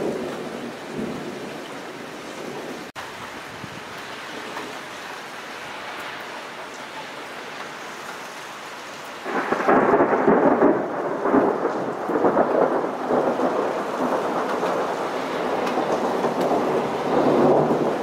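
Steady hiss of rain, then about halfway through a sudden loud roll of thunder that rumbles on, swelling and easing several times.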